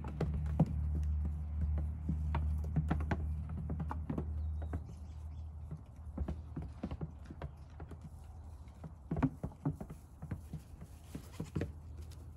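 Goat kids' small hooves tapping and clattering on an upturned plastic pot and a plastic tub as they hop and climb: irregular sharp clicks, busiest in the last few seconds. A low steady hum underneath fades out about five seconds in.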